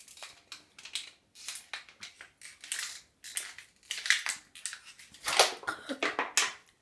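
Thin plastic water bottle crackling and crinkling in irregular bursts as it is squeezed while being drunk down fast. The crackling is busiest from about four seconds in.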